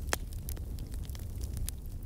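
Crackling fire: irregular sharp pops and snaps over a steady low rumble, with one louder pop just after the start.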